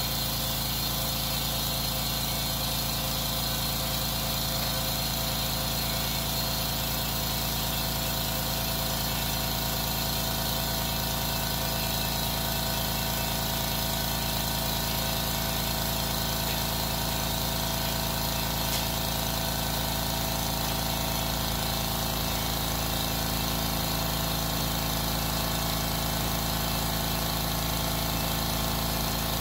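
California Air Tools 8-gallon oil-free air compressor running steadily, its motor and pump filling the tank while pressure builds.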